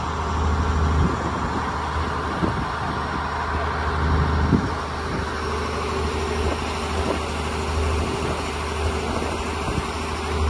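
Engine of a wooden fishing boat running steadily underway, a low even hum, with water rushing past the hull.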